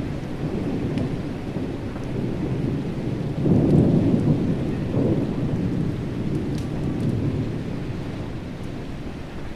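Thunder rumbling in a thunderstorm with steady rain falling. A louder roll comes about three and a half seconds in, with a second swell soon after, then the rumble slowly dies down.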